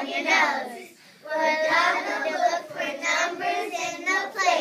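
A class of young children singing together in unison, with a short break between phrases about a second in.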